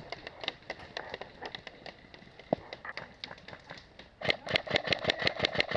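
An airsoft gun fires a rapid burst of shots at about nine a second, starting about four seconds in, over the buzz of its gearbox. Before that come scattered single clicks and snaps.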